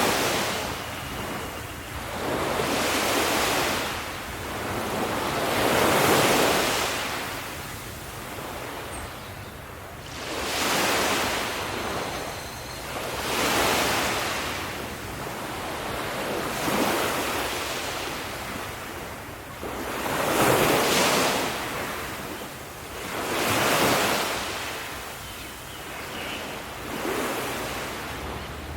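Ocean waves breaking on a shore, each wash of surf swelling and falling away about every three seconds, with wind noise on the microphone.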